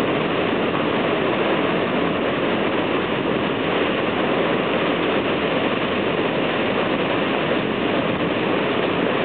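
Heavy thunderstorm rain pouring down in a steady, even rush.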